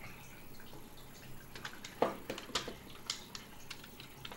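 Light plastic clicks and taps of a smartphone being handled and fitted into a plastic bicycle phone holder's clamp, a few irregular knocks with the firmest about two seconds in.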